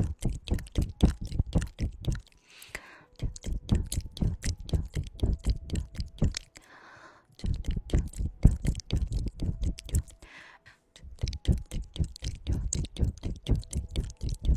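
Close-miked ASMR mouth sounds: rapid wet tongue clicks and smacks in about four runs of a few seconds each, with a short soft breathy sound in the pauses between them.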